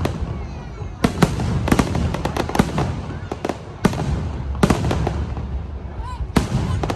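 Fireworks going off in an irregular series of sharp bangs, several coming in quick clusters, over a steady low rumble.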